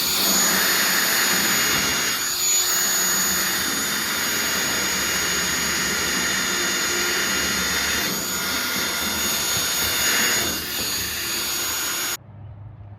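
Electric hand tool's motor running steadily with a high, thin whine over a rushing noise, then switched off suddenly near the end.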